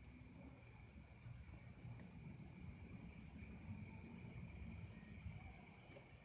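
Faint crickets chirping: an even, high pulsed chirp about three times a second over a steady, lower continuous trill.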